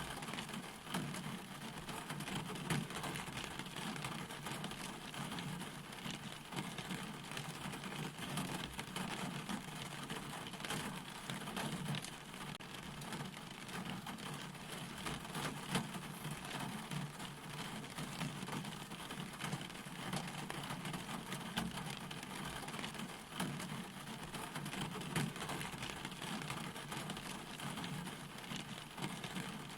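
Steady rain falling, with many separate drops ticking through the even hiss.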